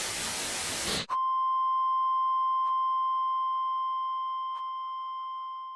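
A burst of hissing static about a second long, cut off sharply by a steady electronic beep tone that holds and slowly fades.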